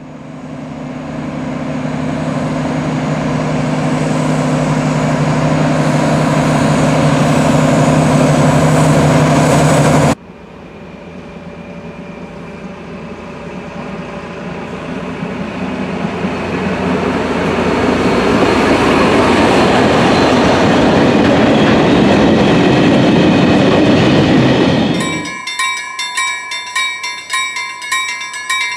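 Diesel-hauled freight train passing, its engine hum and rail noise building up. An abrupt cut comes about ten seconds in, and the noise swells again. Near the end the train noise falls away, and a level-crossing bell rings in quick, even dings.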